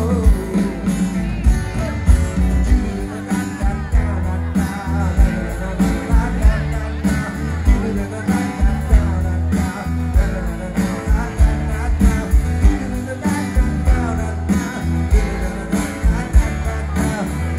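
Live rock band playing a song: acoustic guitar, bass guitar and a steady drum beat, with a man singing lead.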